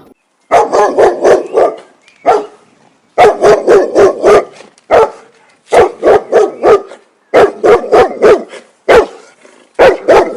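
A dog barking repeatedly, in quick runs of several barks separated by short pauses.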